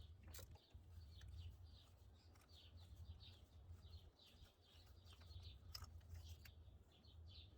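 Near silence: faint birds chirping in the background over a low steady hum, with a couple of faint clicks.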